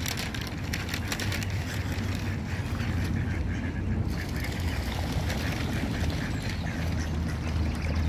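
Mallard ducks quacking repeatedly over a steady low rumble.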